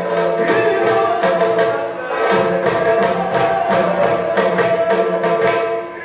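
Yakshagana background music: sharp drum strokes from the troupe's maddale and chande, several a second, over a steady held drone.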